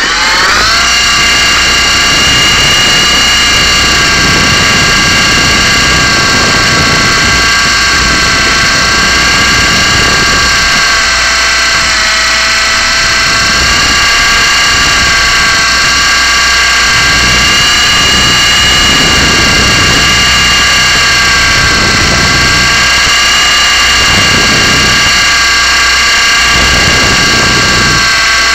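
Blade 120SR micro RC helicopter's electric motor and rotors finishing a spin-up in the first second, then running at a steady high whine with several tones, close to the microphone.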